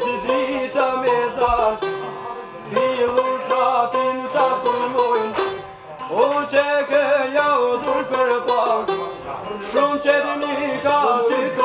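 Long-necked Albanian lutes, çifteli and sharki, plucked in a quick folk melody, played as an instrumental passage between sung verses.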